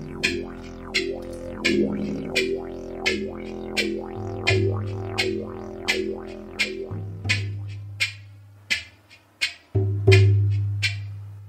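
Music: a shamanic drum beating a steady pulse of about one and a half strokes a second over a low, droning didgeridoo. The drone drops out about eight seconds in while the drum goes on, then comes back loudly near the end.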